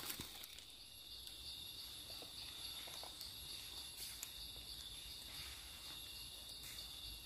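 Steady, faint high-pitched drone of forest insects, a constant shrill band with a thinner, higher one above it, with a few soft ticks and rustles near the start.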